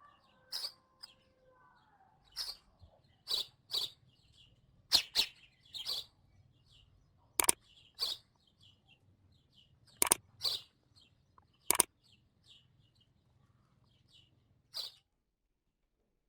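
Birds chirping outdoors: a dozen or so short, sharp chirps at irregular intervals, with fainter chirps between them, over a low steady background hum that cuts off near the end.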